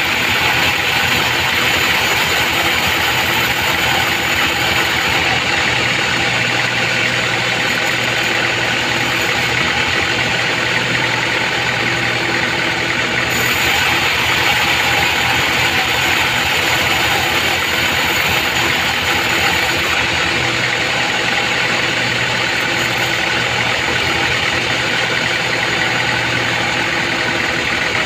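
Sawmill band saw running steadily and ripping a trembesi (rain tree) plank, a constant mechanical drone mixed with the hiss of the blade in the wood. The hiss grows brighter and sharper for several seconds in the middle.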